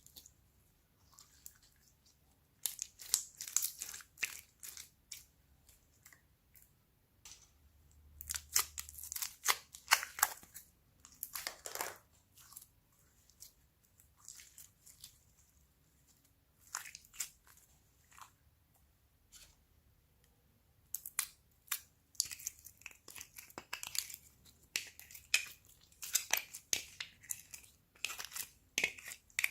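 Slime being squished and mixed, with bursts of rapid sticky clicks and pops separated by quiet pauses.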